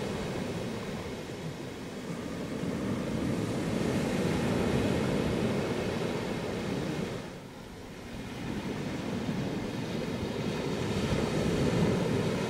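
Sea surf breaking and washing onto a sandy beach, a steady rushing sound that drops away briefly about seven seconds in.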